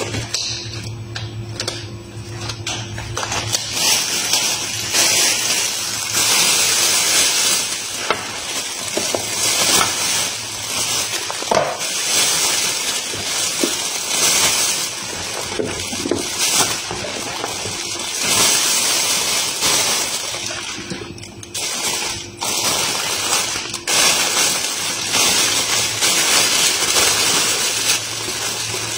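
Thin plastic oven-roasting bag crinkling and rustling loudly as it is shaken and flapped open, in uneven swells with a brief lull about two-thirds of the way through.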